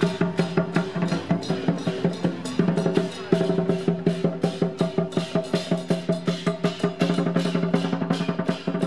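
Chinese dragon-dance percussion, a drum beaten in a fast, even rhythm over steady held tones.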